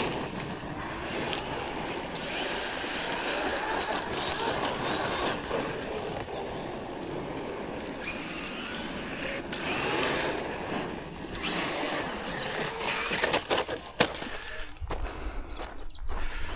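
Traxxas Maxx V2 RC monster truck's brushless motor whining in faint rises and falls as it drives well off in the distance, over a steady hiss. Clicks and a low wind rumble on the microphone near the end.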